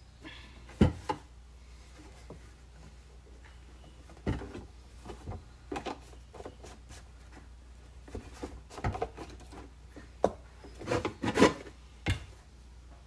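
A wooden paint stick being pushed through a plastic laundry jug and the jug handled on a table: scattered knocks and rubbing of wood against plastic. The loudest knocks come about a second in and in a cluster near the end.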